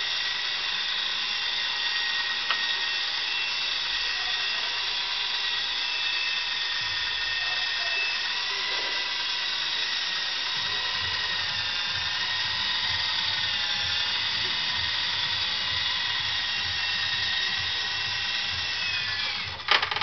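Walkera HM 53Q micro RC helicopter in flight: a steady high-pitched whine from its electric motors and spinning rotors. Near the end the whine falls in pitch as the motors power down, with a sharp clatter as it touches down on the table.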